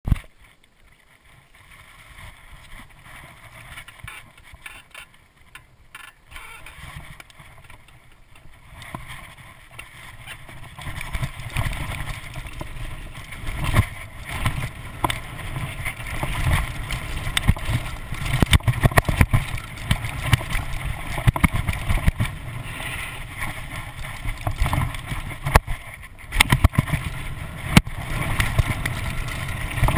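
Mountain bike riding down a dirt singletrack, heard from a rider-mounted camera: wind rushing over the microphone, tyres rolling on dirt, and the bike knocking and rattling over bumps. Fairly quiet for the first nine seconds or so, then louder and busier as speed picks up.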